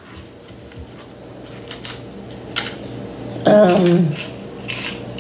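A small knife scraping seeds and stringy flesh out of a halved squash: a run of short, wet scrapes that starts about a second and a half in. A brief murmur of voice comes about three and a half seconds in.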